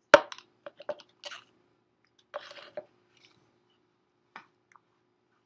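Close handling noise: one sharp knock at the start, then a few lighter clicks and knocks, a short scraping rustle about two and a half seconds in, and a last click near the end.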